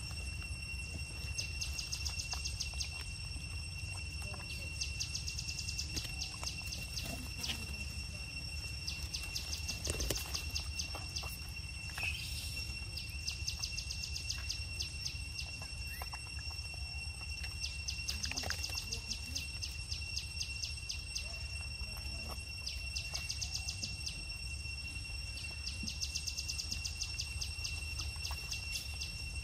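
Dusk insect chorus: a steady high-pitched ringing drone, with bouts of rapid chirping pulses about a second long recurring every three to four seconds. Underneath is a low steady rumble, and a few faint clicks stand out here and there.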